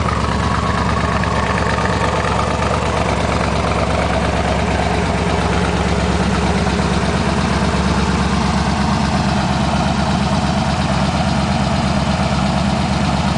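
Chevrolet LT-1 350 small-block V8 in a 1968 Corvette, idling steadily.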